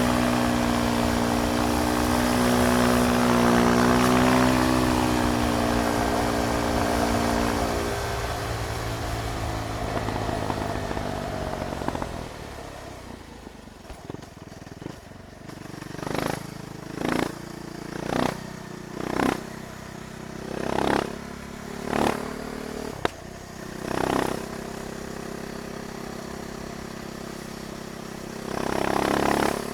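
KTM Duke 390's single-cylinder engine pulling steadily, then rolling off and slowing toward idle. It follows with a run of about seven short throttle blips, roughly one a second, settles to a steady idle, and gives one more rev near the end.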